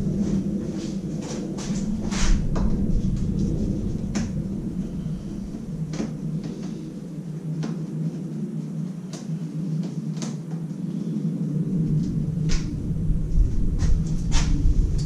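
Scattered clicks and light knocks of a Phillips screwdriver undoing the screws of a motorcycle's plastic tank cover, with hands handling the plastic, over a steady low hum.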